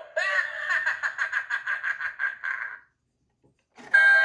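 An animatronic skull doorbell's speaker plays a rapid, pulsing recorded laugh that stops a little before three seconds in. After about a second of silence, the doorbell's ding-dong chime starts near the end.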